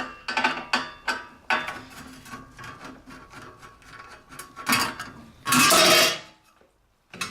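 Metal clicks and knocks of a band sealer's cover being unfastened and handled, with a louder rattling scrape lasting under a second about five and a half seconds in.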